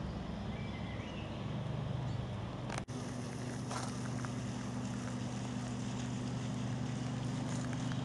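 A steady low mechanical drone with a faint rush of wind. It cuts out for an instant a little under three seconds in, then carries on with a slightly higher tone added.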